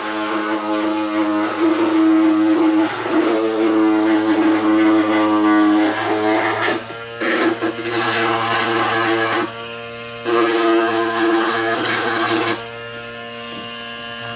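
A small handheld electric power tool's motor running steadily with a buzzing pitched note, louder and quieter by turns as it works the plastic, with a quieter stretch near the end.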